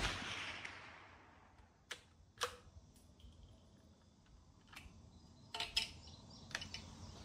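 The fading tail of a .22 WMR rifle shot from a Rossi RB22M bolt-action, dying away over about a second. It is followed by a few faint, sharp mechanical clicks, with a quick cluster of them near the end, as the rifle is handled.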